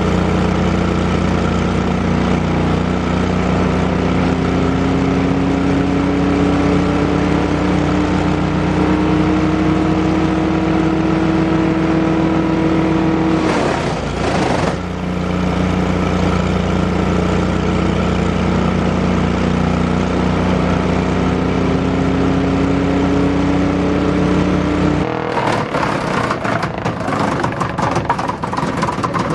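An 18 HP Briggs & Stratton engine on a DR wood chipper runs steadily, with a whine that slowly rises in pitch. About halfway there is a brief burst of rough noise, and then the whine climbs again. Near the end the engine hum gives way abruptly to a crackling clatter.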